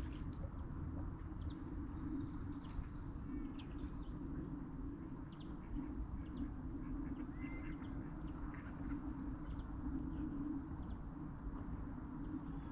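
Small birds giving scattered short chirps and calls over a steady low background rumble.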